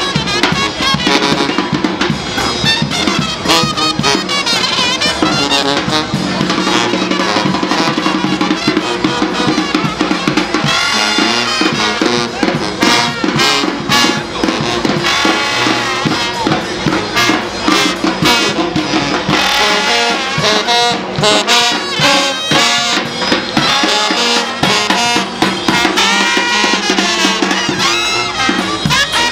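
A second-line brass band playing: trumpets and trombones over sousaphone and drums, with a steady marching beat.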